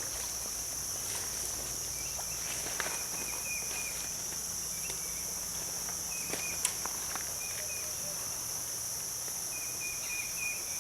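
Steady high-pitched insect chorus, crickets or similar, running without a break, with scattered clicks and light knocks from handling and movement on the creek bank and a few short chirps.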